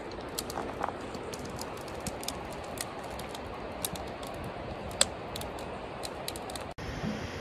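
Scattered light clicks and ticks over a steady outdoor background hiss, with one sharper click about five seconds in and a brief dropout near the end.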